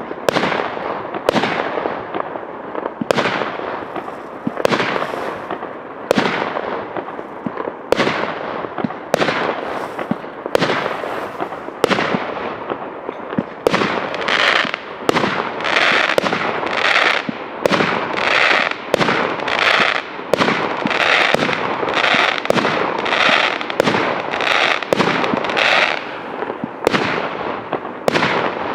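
JFC 30-100/01 firework cake firing shot after shot, each a sharp bang trailing off, about one to two a second. For about twelve seconds in the middle the shots come closer together with a brighter crackling sound.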